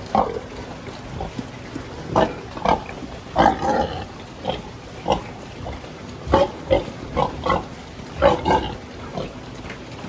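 Sows in metal stalls grunting: short, separate grunts coming irregularly, about one a second, some in quick pairs.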